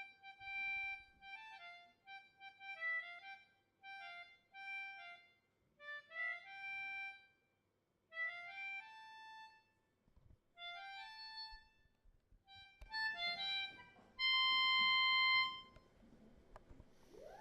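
Harmonica playing a short tune in phrases of quick notes, ending on a long held chord, the loudest part, about fourteen seconds in.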